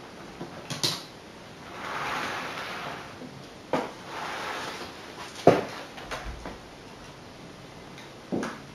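Clicks and knocks of model railway locomotives and coaches being handled and set down among the rolling stock, the loudest knock about halfway through, with two short spells of a soft rushing noise between them.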